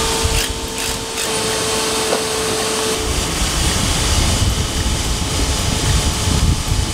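Hilti cordless vacuum running steadily, its hose sucking concrete drill dust out of a drilled anchor hole.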